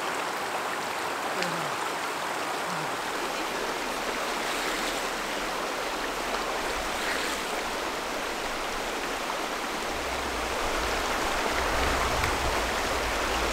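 Steady rushing of a shallow, rocky mountain creek flowing over stones, with a low rumble joining in about ten seconds in.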